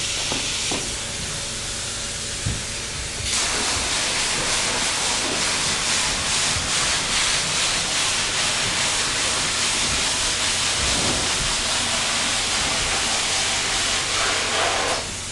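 Spray foam gun spraying foam insulation into floor joist bays: a loud, steady hiss that starts about three seconds in and cuts off near the end. Before it starts there is a fainter hiss with a few knocks.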